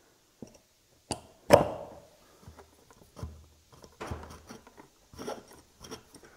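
Small electric pump motor being reassembled by hand: scattered clicks and knocks of metal parts being fitted together, the loudest a sharp clack about a second and a half in, with light scraping and rustling of handling in between.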